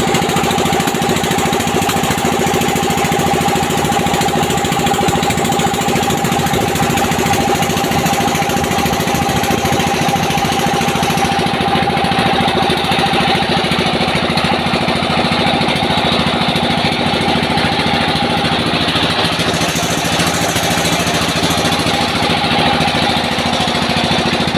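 Small wooden fishing boat's engine running steadily underway, an even mechanical drone with no change in speed.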